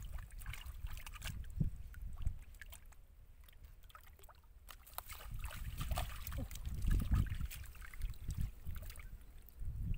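Wind rumbling on the microphone in gusts, easing off a few seconds in and picking up again later. Over it come small, sharp wet clicks and rustles from hands digging in soft wet mud and handling a fish.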